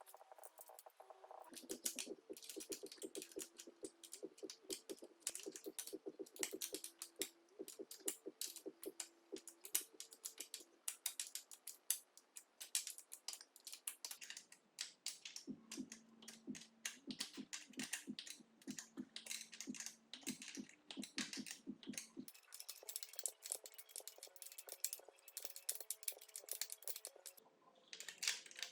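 Rapid, uneven clicking of a ratchet wrench turning the motorcycle's chain adjuster bolts, over soft background music with a simple stepping tune.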